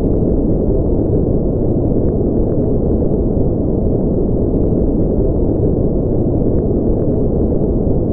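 Steady low-pitched noise with no distinct tone or events, unchanging in level, with nothing heard in the upper range.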